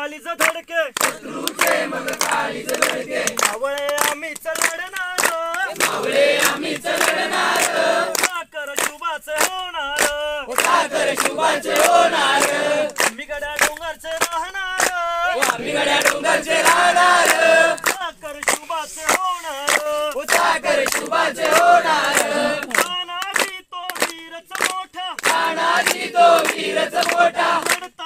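A group of men and women singing together, with many hands clapping in a steady beat.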